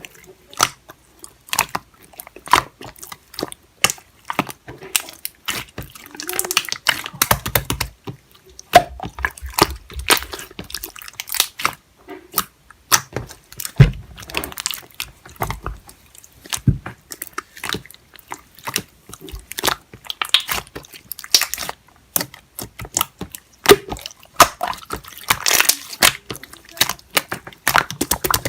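Hands squeezing, stretching and poking clear slime mixed with beads and plastic charms: a dense, irregular run of sticky clicks, crackles and squelching pops.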